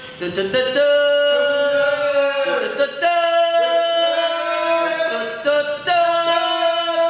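Voices singing long held notes in two-part harmony, the notes changing every two to three seconds.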